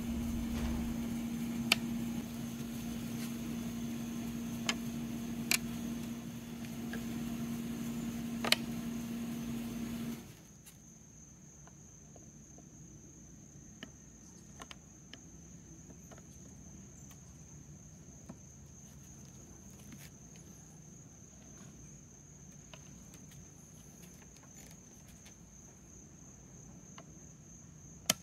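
Light clicks and knocks of hard plastic statue parts being handled and fitted into place. For about the first ten seconds they sit over a steady low hum that cuts off suddenly. After that there is only a faint outdoor background with a steady high insect drone, broken by a few soft clicks.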